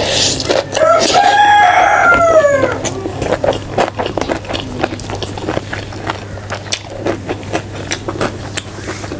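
A rooster crows once, a single call of about two seconds that rises and then falls in pitch. After it come wet clicks and smacks of rice being squeezed by hand and chewed.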